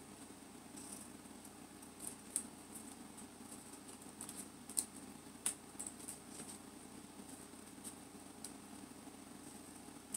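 Scissors snipping envelope paper: faint, scattered short snips, the sharpest few near the middle.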